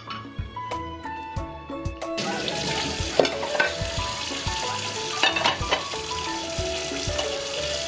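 Tap water running hard into a stainless steel kitchen sink as dishes are rinsed, starting about two seconds in, with a couple of sharp knocks of dishes being handled. Background music with plucked notes and a soft beat plays throughout.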